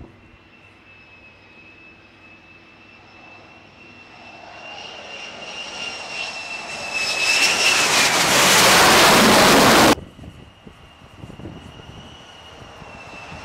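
F-35 fighter's jet engine: a steady high whine grows into a loud roar as the jet launches off the carrier deck. The roar cuts off suddenly about ten seconds in, and a quieter high whine of the engine returns, building again near the end.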